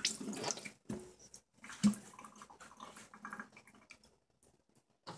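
Kitchen handling noises: a brief watery splashing, a single sharp knock a little before two seconds in, then faint clicks and scrapes as a spatula is brought to a meringue-covered cake on its turntable.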